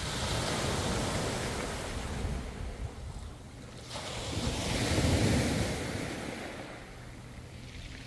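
Small sea waves washing in on a pebble beach, the surf swelling twice a few seconds apart.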